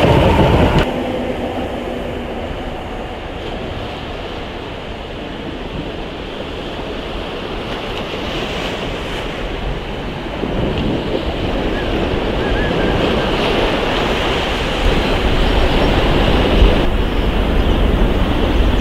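Sea surf and wind on the microphone, with a GWR diesel multiple unit approaching along the sea wall and growing louder over the second half. In the first second a train runs loudly, and its sound cuts off suddenly.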